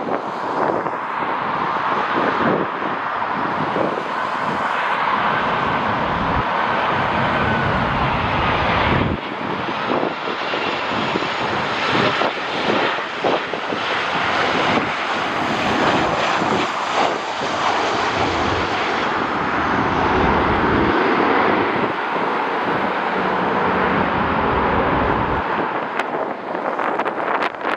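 Jet airliner engines running loud and steady as a plane passes, with a faint high whine, while strong wind buffets the microphone in gusts.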